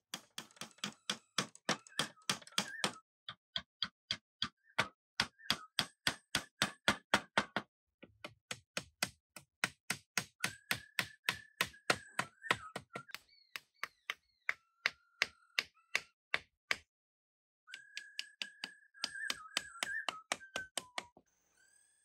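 Rapid, regular knocking strikes, about four a second, in runs of a few seconds broken by short pauses, with a thin wavering whine alongside them in places.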